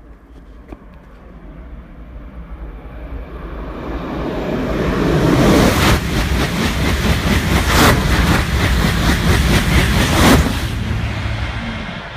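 TGV high-speed train passing underneath at speed: a rushing noise that builds over about five seconds, stays loudest for about five more with a few sharp whooshes, then falls away.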